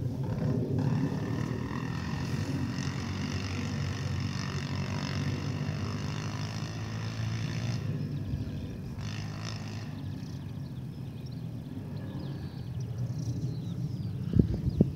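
Ride-on lawn mower engine running steadily, with a higher whine over it from about one to eight seconds in and a few thumps near the end.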